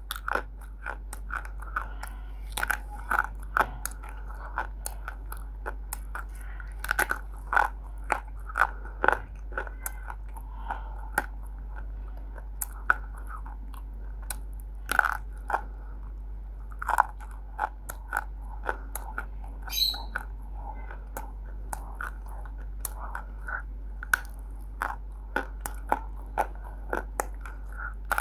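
A person biting and chewing roasted multani mitti (fuller's earth clay): many sharp, irregular crunches, several a second at times, with short pauses between bites.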